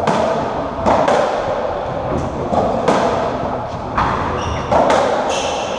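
Racketball rally: a series of sharp, echoing hits about a second apart as the ball is struck by the rackets and rebounds off the court walls, with brief shoe squeaks on the wooden floor near the end.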